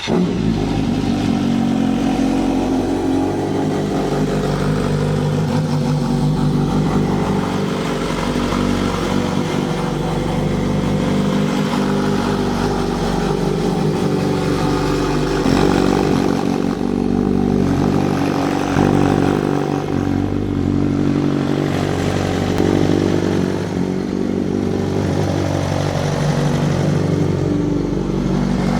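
BMW M1000R's inline-four running through a genuine SC Project S1 slip-on exhaust while riding, the engine held at fairly steady revs with small rises and falls.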